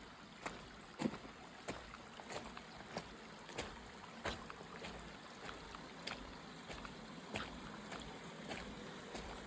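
Footsteps on wet rock and gravel, a sharp step about one and a half times a second, over a faint trickle of water.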